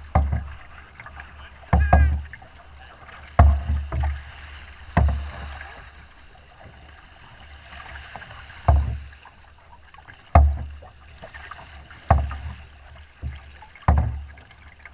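Small boat's hull slapping into wind-driven chop: a low thump with a splash roughly every one and a half to two seconds, with choppy water washing between the hits.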